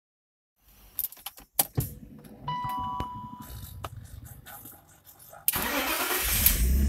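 Key jangling and clicks in the ignition, then a short electronic chime as the ignition comes on. About five and a half seconds in, the starter cranks the BMW E39's 2.8-litre inline-six, and it starts firing near the end.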